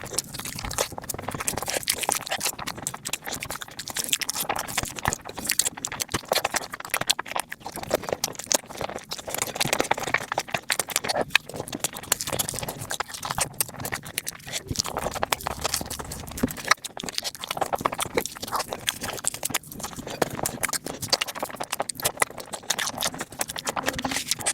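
Close-miked eating sounds of people eating fast: a dense, unbroken stream of chewing clicks and mouth smacks.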